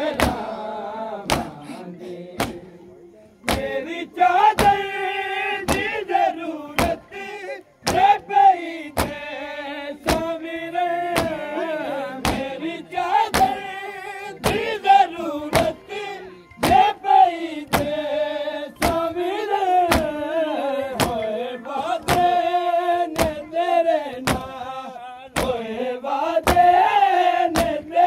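Noha, a Shia mourning lament, chanted by men's voices over the steady, regular slaps of chest-beating (matam), about one and a half strikes a second. For the first three seconds or so the strikes are heard alone, then the chanting comes in.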